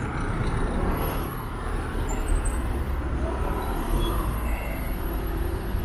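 City street traffic: a steady low rumble of passing motor vehicles, without any distinct single event standing out.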